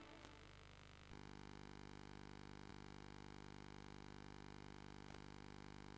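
Near silence: a faint steady hum and hiss from VHS tape playback, coming in about a second in.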